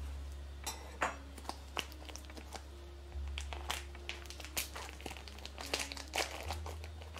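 Irregular crinkling and crackling with scattered sharp clicks as corn on the cob is handled for cutting, over a low steady hum.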